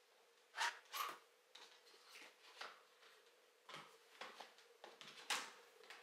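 Small handling sounds in a quiet room: a scattering of soft clicks, taps and rustles, the sharpest about half a second in, just after a second in, and about five seconds in, over a faint steady hum.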